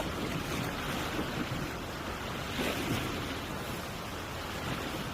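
Sea waves washing and surging, with wind buffeting the microphone: a steady rush without distinct knocks or tones.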